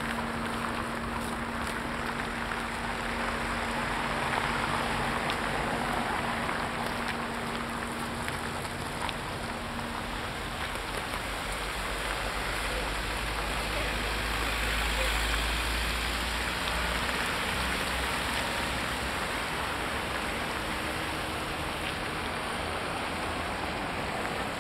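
Road traffic: cars passing on a snowy, slushy street, a steady hiss with a deeper rumble that swells around the middle as vehicles come close. A steady hum is there for the first ten seconds or so.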